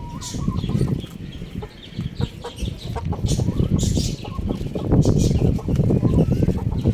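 Chickens clucking, with short high calls now and then over a steady low rumble and scattered knocks.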